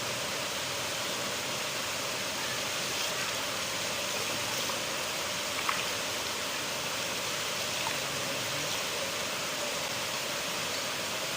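River water flowing, a steady unbroken rush, with a brief faint tick just past halfway.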